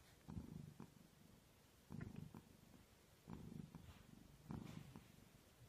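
Tabby-and-white domestic cat purring faintly, in soft pulses a second or so apart.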